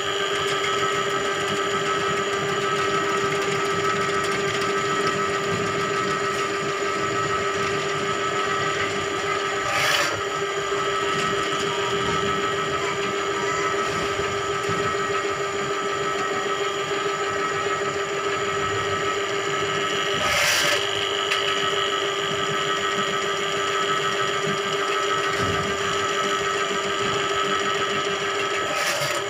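Electric drain-cleaning machine running, its motor spinning a coiled spring cable into a blocked drain: a steady mechanical whine holding several fixed tones, broken briefly three times about ten seconds apart.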